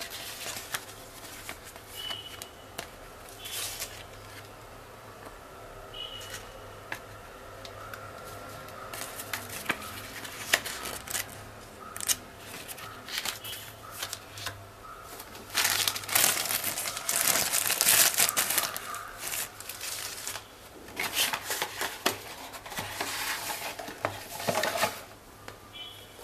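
Paper and plastic packaging handled by hand: booklet pages flipping, papers and a plastic bag rustling and crinkling in irregular bursts, busiest and loudest in the second half, over a faint steady low hum.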